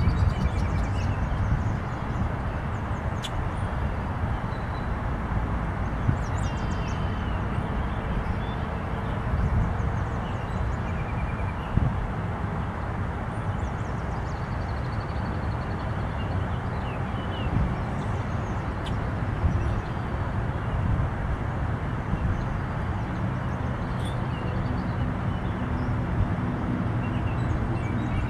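Steady low outdoor rumble and hiss, with small birds chirping briefly several times.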